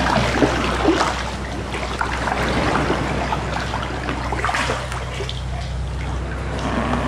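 Kayak paddle blades dipping into and pulling through calm sea water, with irregular splashing and dripping.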